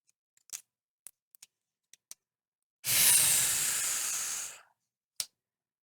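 A hiss lasting about two seconds, starting about three seconds in and fading out, with a few faint clicks before and after it.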